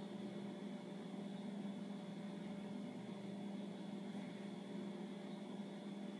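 Steady low electrical hum over a faint hiss: quiet room tone, with no sound from the work itself.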